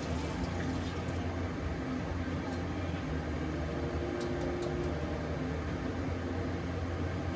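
Steady low hum, like a fan or appliance running, with a few faint clicks about four seconds in.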